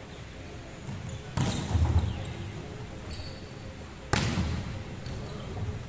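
A volleyball struck hard by hand twice during a rally, each hit a sharp slap that echoes in a large gym hall. The second hit, about four seconds in, is a spike at the net.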